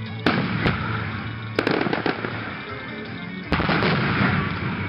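Aerial fireworks shells bursting close by: a sharp bang about a quarter second in, another just after, a quick pair around a second and a half, then a louder burst about three and a half seconds in that gives way to a denser, continuous barrage.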